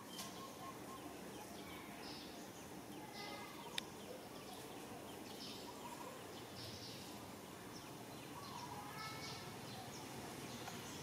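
Quiet outdoor background with scattered faint chirping calls, and a single sharp click about four seconds in.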